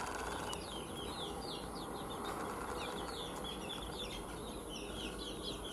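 A flock of young kampung chickens, about six weeks old, peeping: many short, falling chirps overlapping without a break.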